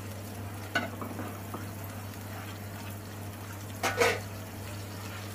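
Wooden spatula stirring a thick, bubbling masala paste in a nonstick pan, with two sharper scrapes or knocks, the louder one about four seconds in, over a steady low hum.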